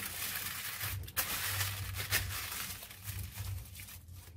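Aluminium foil crinkling and crackling as hands press and fold it down over an ice-cream mould to seal it. A few sharper crackles stand out, and the sound dies away near the end.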